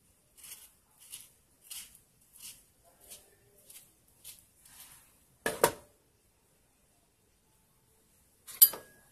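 Kitchen knife scoring the flesh of a half avocado in its skin: about eight soft, quick strokes a little over half a second apart. About halfway through come two sharp knocks, the loudest sounds, and near the end a sharp click with a brief ring.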